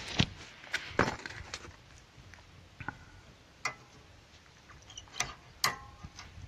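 Sharp metallic clicks and clinks, about seven spread unevenly, a few briefly ringing, as brake pad spring clips are pressed into place on a Fiat Ducato rear brake caliper.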